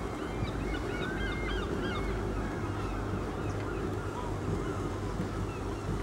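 Birds calling in short, quick chirping calls, mostly in the first two seconds, over a steady low rumble of harbour background noise.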